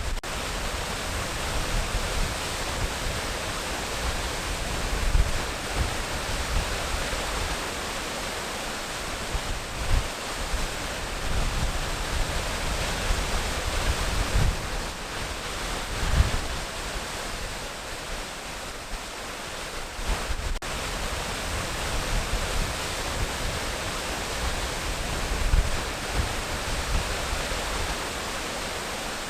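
Waterfall rushing steadily, with irregular low rumbling swells underneath.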